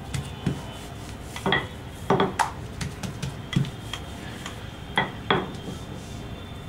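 Wooden rolling pin rolling out parotta dough on a hard countertop, knocking against the counter in a series of sharp, irregular clacks, loudest in pairs about two seconds in and about five seconds in.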